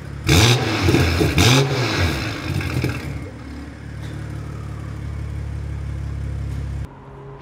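BMW X3 M40i's B58 turbocharged inline-six running through a 200-cell downpipe with the OPF (petrol particulate filter) deleted. It is revved twice in quick succession, each rev rising and falling back, then settles to a steady idle. The sound cuts off suddenly near the end.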